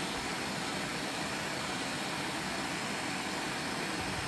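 MAPP gas hand torch burning with a steady, even hiss as its flame heats a copper line joint for soft soldering.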